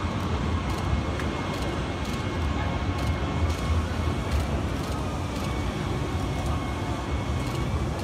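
Steady din of a busy indoor exhibition hall: a low rumble and an even wash of indistinct crowd noise, with faint steady tones.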